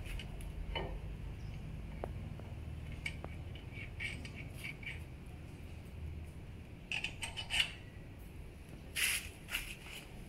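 Light metallic clicks and clinks of hand tools against a brake caliper and its mounting as it is bolted onto the hub, coming in a few short clusters over a low steady hum.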